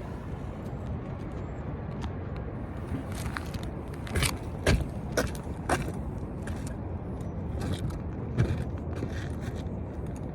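Steady low outdoor hum, with a handful of short knocks and clatters, several close together around the middle and one more near the end, as pieces of wood are handled and set in place during framing work.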